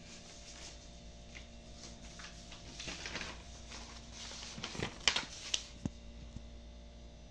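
Soft paper rustles and a few sharp clicks from handling a textbook's pages and sticky notes, the sharpest just after the middle. A low steady room hum runs underneath.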